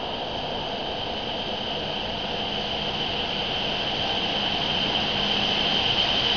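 Hokuriku Shinkansen E7/W7-series train approaching the platform: a steady rushing noise with a high whine, growing gradually louder as it draws in.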